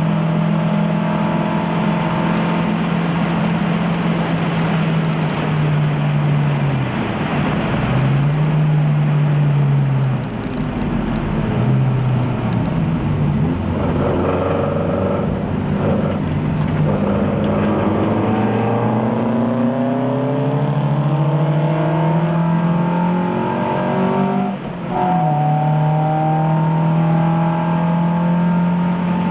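Onboard engine sound of a 1971 Alfa Romeo Giulia race car, its twin-cam four-cylinder held at high revs under load. The pitch drops sharply a few times, with a brief dip in level just before the end, and climbs steadily back up in between as the car shifts and accelerates.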